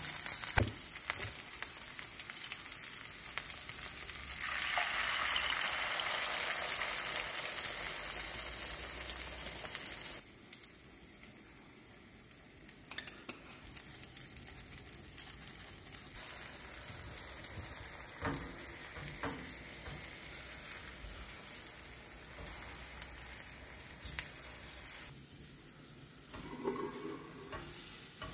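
Eggs sizzling in a nonstick frying pan, a steady frying hiss. It gets louder about five seconds in, drops abruptly about ten seconds in, and stays quieter after that, with a few light knocks of handling.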